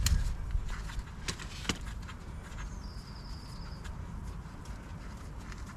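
A few sharp metallic clicks and knocks in the first two seconds as the gearbox drain plug is worked out, then a steady low wind rumble. About halfway through, a bird trills briefly.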